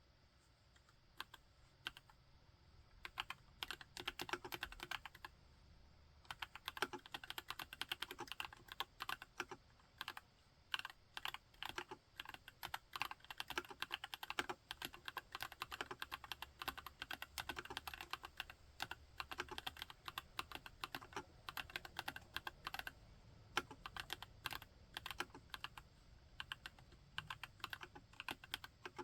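Typing on a TX EO87 r3 tenkeyless mechanical keyboard with JWK switches: a few scattered keystrokes at first, then steady fast typing with short pauses.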